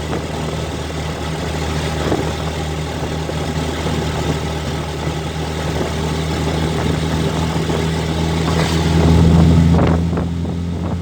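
A vehicle engine running with a steady hum and road noise, swelling louder briefly near the end.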